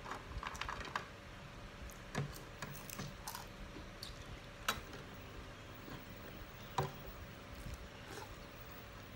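Close-miked eating sounds: chewing and mouth noises, with scattered short clicks of a spoon and fingers against plates. Two clicks in the second half stand out as the loudest.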